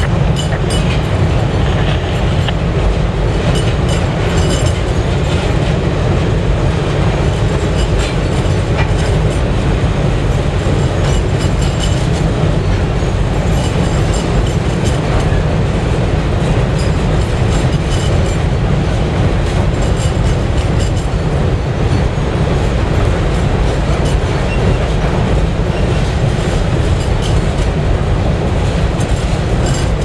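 Freight cars rolling steadily across a steel girder railroad bridge: a continuous heavy rumble with wheels clicking over rail joints throughout.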